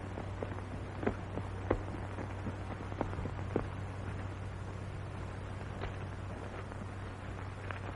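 Steady low hum and hiss of an old film soundtrack, with a few irregular soft taps in the first half.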